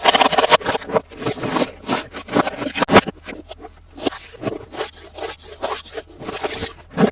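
Hands handling a toy up close: irregular rubbing and scraping with scattered clicks, and one sharper click about three seconds in.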